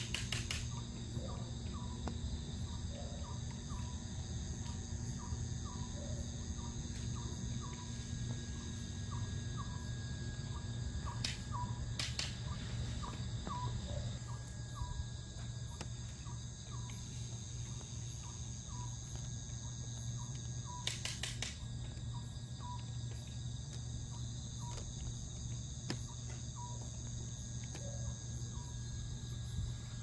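Crickets and other night insects trilling steadily, with a short chirp repeating about once or twice a second, over a steady low hum. A few sharp clicks stand out near the start, about a third of the way in and about two-thirds of the way in.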